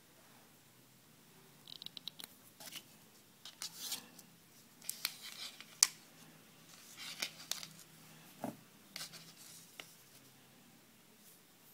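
Handling noise from a homemade wooden knot-tying tool and fishing line on a tabletop: scattered small clicks, scratches and rustles, with a sharp click about halfway and a light knock a little later.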